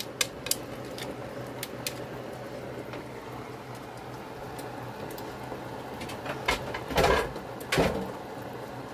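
Handling noise: a few faint clicks in the first couple of seconds, then two or three louder short knocks and rustles about seven to eight seconds in, over a low steady hum.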